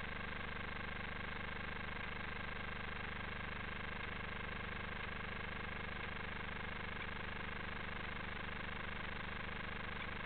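A steady, unchanging hum with a hiss over it, with no separate events.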